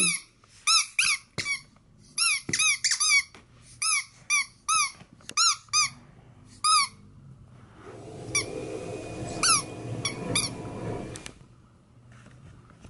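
A rubber squeaky dog toy squeezed over and over, in quick runs of two or three squeaks, for about the first seven seconds. From about eight to eleven seconds in there is softer rustling with a few more squeaks.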